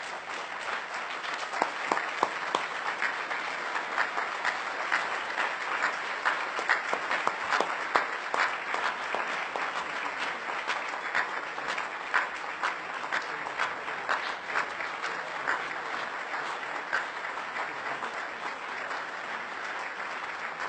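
A large audience applauding steadily, with many individual claps standing out.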